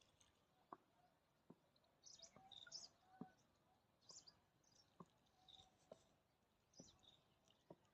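Faint, scattered bird chirps, high-pitched and brief, with soft sharp ticks about once a second.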